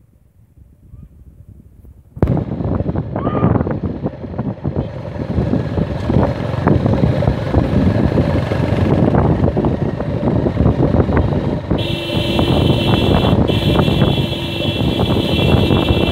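A motor vehicle driving fast over a rough dirt track, starting abruptly about two seconds in: engine noise mixed with wind on the microphone and constant knocking and rattling over bumps. A steady high whine joins about three-quarters of the way through.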